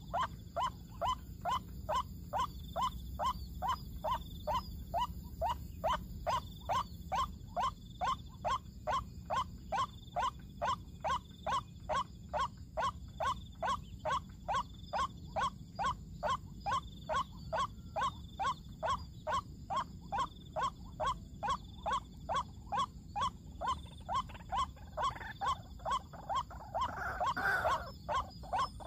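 Monotonous 'kruak' calls of a white-breasted waterhen (ruak-ruak), about two short falling notes a second, repeated with a loop-like evenness that marks a recorded call played as a lure at a snare. Near the end a louder, rougher sound joins in.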